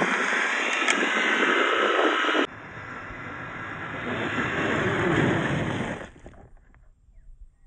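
Traxxas TRX4 scale RC crawler driving over rough ground: a loud, steady rush of drivetrain and tyre noise. It drops sharply about two and a half seconds in, then dies away about six seconds in.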